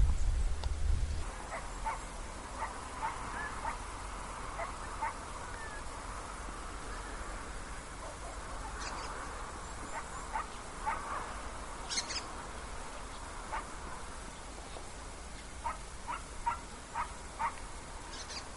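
Outdoor background with many short, distant animal calls scattered through it in loose clusters. A brief low rumble on the microphone comes in the first second.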